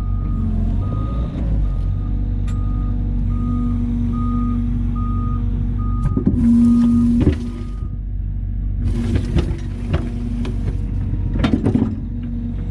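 Excavator running with a steady engine drone, while an electronic warning alarm beeps at an even pace, about one and a half beeps a second, for most of the first seven seconds. Two louder spells of machine noise with a hissing edge come about six seconds in and again from about nine to twelve seconds.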